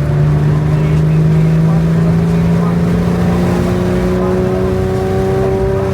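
Car engine running under steady load, its pitch rising slowly as it gathers speed.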